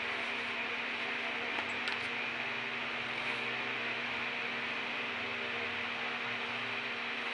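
Steady hiss with a low hum underneath, like a running fan or room noise, with a couple of faint clicks about two seconds in.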